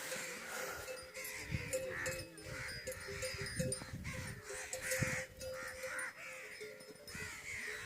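A chorus of birds calling over and over, many short calls overlapping, with a steady low tone running underneath.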